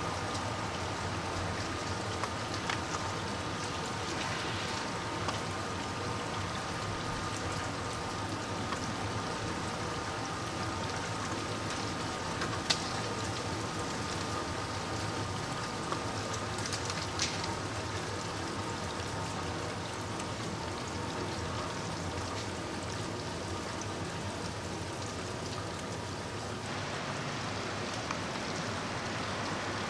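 Freezing rain falling steadily, pattering on surfaces, with a few sharper ticks standing out, the loudest about thirteen seconds in.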